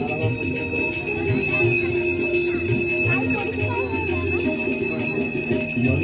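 Hand bell of an aarti ringing continuously with a steady metallic ring, over voices lower down.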